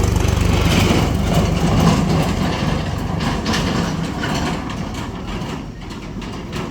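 Heavy diesel engine running loudly, a deep steady drone, growing quieter over the last few seconds.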